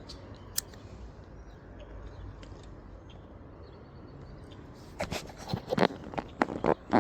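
Low steady outdoor background, then from about five seconds in a run of irregular, loud crunches and clicks close to the microphone.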